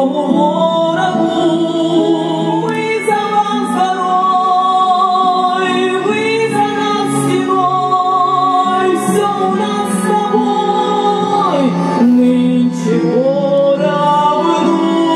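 A woman singing a slow, wartime-style song into a microphone over instrumental backing music, amplified through a loudspeaker.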